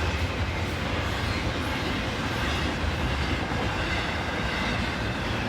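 Norfolk Southern intermodal freight train's cars rolling past fast, a steady noise of steel wheels on rail, heaviest in the low end.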